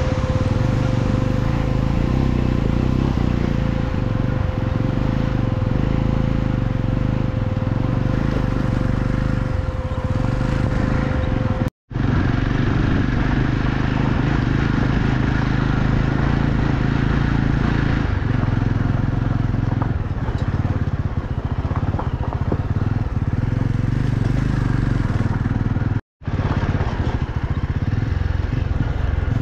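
Motorcycle engine running steadily as it rides over a loose gravel track, with the tyres crunching and rattling on the stones. The sound cuts out for an instant twice, about twelve seconds in and near the end.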